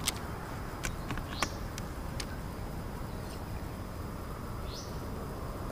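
Birds calling outdoors: a few short, high, falling chirps spaced seconds apart over a steady open-air hiss, with several sharp ticks, the loudest near the start and about a second and a half in.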